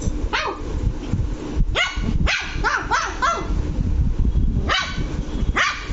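Lhasa Apso puppy barking angrily in short, high yaps that drop in pitch. There is one yap at the start, then a quick run of about five, then two more spaced out near the end.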